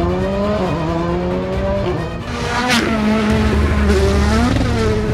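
Rally car engines. A Volkswagen Polo GTI R5's engine accelerates hard with its pitch climbing, with a brief break about a second in; from about two seconds in a rally engine runs at a steadier pitch, dipping and climbing again near the end.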